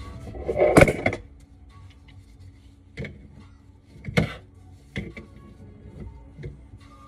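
Plastic sink drain pipework being handled and fitted: a short clatter about a second in, then sharp knocks at about three, four and five seconds, over background music.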